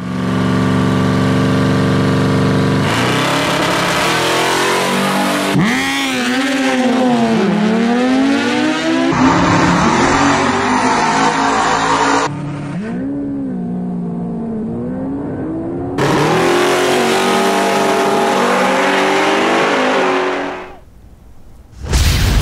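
Drag-racing engines revving hard and accelerating, in several clips cut together. The pitch sweeps up and falls back again and again, and the sound changes abruptly between clips before dropping away near the end.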